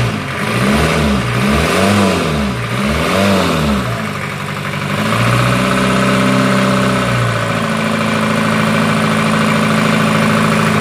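Nissan 2.5-litre four-cylinder diesel boat engine, just fitted with its injectors and bled of air, running: it is revved up and down three times, held at higher revs for about two seconds, then drops back to a steady idle.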